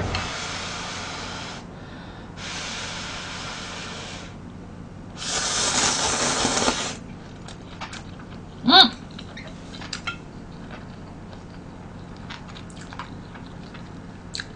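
Three long, steady blows of breath over hot instant noodles held at the lips to cool them, the third the loudest, then a short hummed 'mm' about nine seconds in while chewing.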